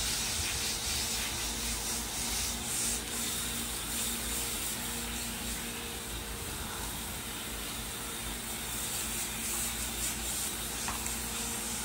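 Water from a garden hose spraying over a horse's wet coat, a steady hiss. A faint steady hum sits underneath.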